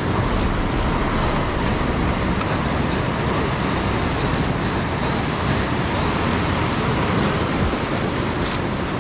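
Steady roar of surf breaking on a beach.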